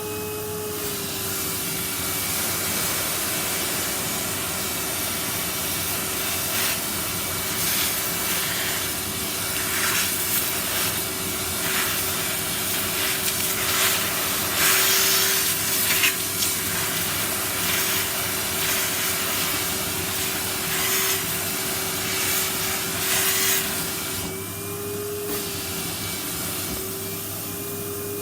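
Vacuum cleaner running with a steady whine while its nozzle rubs and scrapes over bare feet in repeated passes, loudest about halfway through. The motor's pitch rises and falls briefly twice near the end.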